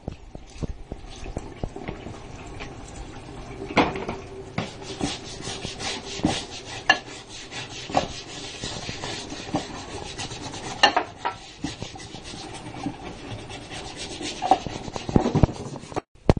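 Tap water running onto a wooden chopping board in a stainless steel sink while a hand scrubs it, with steady rubbing strokes and a few louder knocks.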